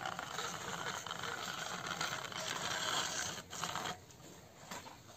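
Small electric motor and plastic gears of a wired-remote toy car running with a rough, rattling whir, which stops about four seconds in with a click or two.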